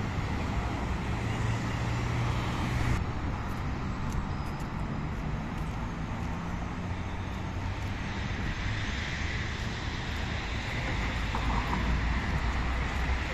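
Steady road traffic noise from a busy city street, with a low engine drone that eases about three seconds in.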